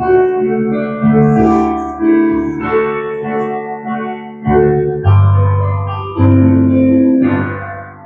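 Piano played solo: slow, sustained chords, with a new chord struck roughly every second.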